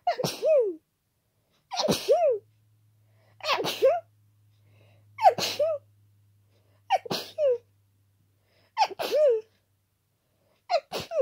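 A person with a cold sneezing hard over and over, about seven sneezes in a row, one every second and a half to two seconds. Each is a quick gasp followed by a wet, powerful 'achoo' that falls away in pitch.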